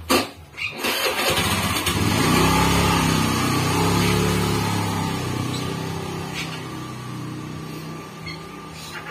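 An engine starts just after a click and runs steadily. It is loudest two to three seconds in, then slowly fades away.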